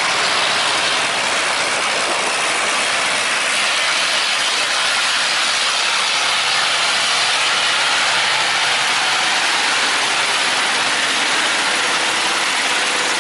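Boat motor running steadily under a loud, even rushing noise, with a faint low engine hum showing more clearly from about halfway through.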